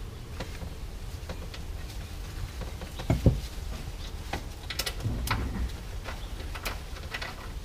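Scattered clicks and knocks of hands and tools working in a car's trunk to get at the battery, with one louder thump about three seconds in.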